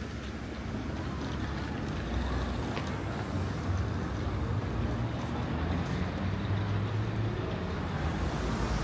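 City street traffic: a steady low rumble of vehicles, growing a little louder toward the end.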